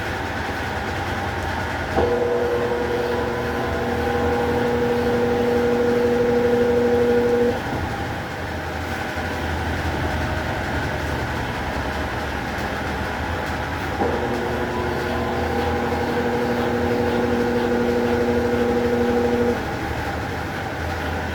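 Consul Facilite 11 kg top-load washing machine running its rinse cycle: a steady wash of water and machine noise, with the motor humming on twice for about five seconds at a time, with a pause of several seconds between.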